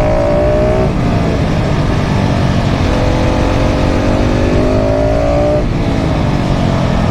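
KTM 690 SMC R single-cylinder engine, with a full LeoVince exhaust, accelerating under load. The revs climb and drop sharply at an upshift about a second in, then climb again and drop at another shift near the end, over steady wind rush.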